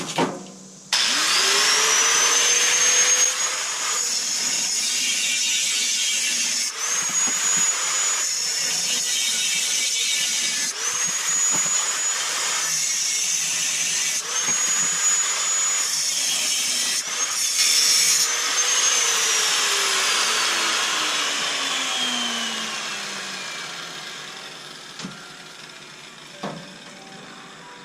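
Angle grinder with a grinding wheel spinning up and cutting through 2x1-inch steel square tubing, its whine dipping and recovering several times as the wheel bites into the steel. Near the end it is switched off and its whine falls away as the wheel winds down over several seconds.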